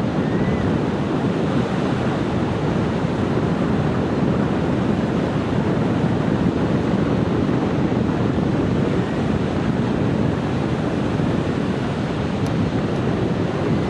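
Steady wind buffeting the microphone, mixed with the wash of ocean surf on the beach.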